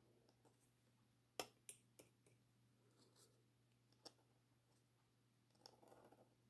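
Faint scratching of a calligraphy pen nib on paper, with a few sharp clicks, the loudest about a second and a half in and another about four seconds in.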